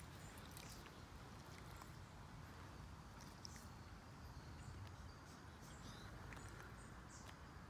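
Near silence: a low, steady outdoor rumble with a few faint, scattered ticks.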